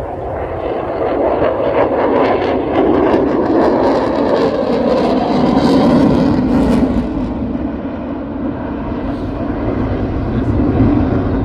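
F-22 Raptor's twin Pratt & Whitney F119 turbofans: loud jet noise as the fighter flies past. The noise builds to its loudest about six seconds in, then eases off.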